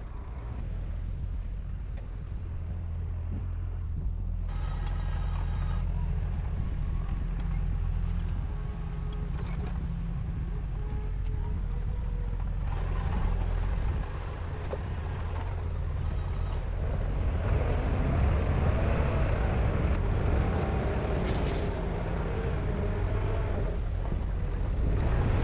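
Heavy diesel earthmoving machinery at work: a steady low engine rumble, with rattling and scraping that join in about four seconds in and grow loudest in the second half.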